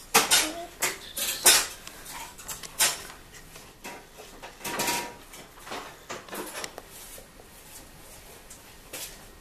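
Kitchen utensils and dishes being handled: a run of clattering knocks and clinks, thickest in the first three seconds and thinning out after about seven seconds.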